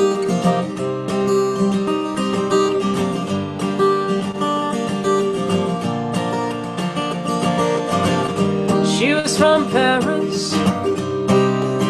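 Acoustic guitar played as a song's opening, with chords ringing steadily. A woman's singing voice comes in about nine seconds in.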